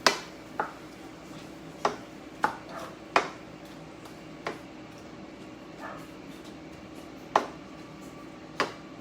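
A cooking utensil knocking against a pan about eight times at irregular intervals while ground turkey browns, over a faint steady hum.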